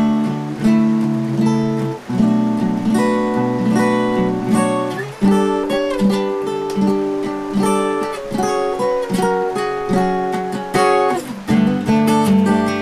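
Background music: a guitar playing plucked and strummed chords with a melody.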